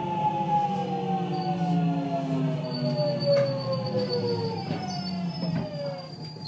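Toshiba GTO VVVF inverter and traction motors of a JR West 207 series motor car, a stack of whining tones falling together in pitch as the train slows, over the rumble of the running gear. One of the car's two inverters has drifted out of step in its modulation, so the two sets of tones clash into an odd, howling harmony.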